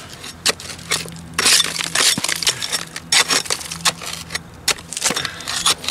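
A metal hand tool scraping and picking at loose mortar and grit on a stone step, in irregular short scratchy strokes and clicks as bits break away. This is the loose material being cleared from the joint before a stone is reset.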